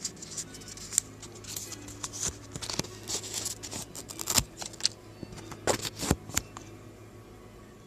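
Scissors cutting a bird shape out of a paper sticky note: a run of irregular snips and clicks that stops about six and a half seconds in.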